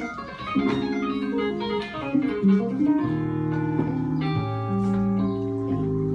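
Electronic keyboard played solo with an organ-like sound: sustained chords that change every second or so, with held low bass notes coming in about three seconds in.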